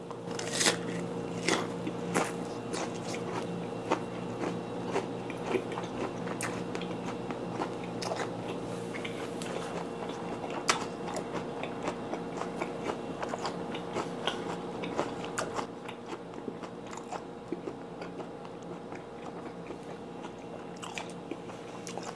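Close chewing of a mouthful of vinegar-cured mackerel (shime saba) on raw onion with sliced green onion, the crisp onion crunching in quick, irregular crunches. The crunching thins out after about 16 seconds.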